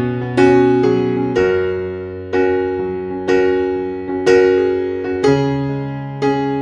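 Background music: slow electric piano chords struck about once a second, each ringing and fading, over held bass notes.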